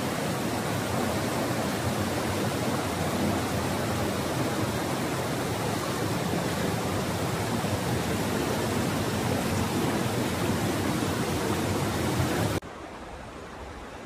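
Steady rushing noise, like moving water or wind, that cuts off suddenly near the end and leaves a quieter hiss.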